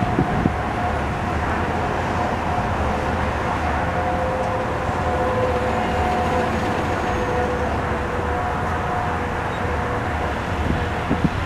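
Heavy trucks, including a flatbed tow truck, driving past with a steady engine rumble, with long steady tones over it that come and go and change pitch.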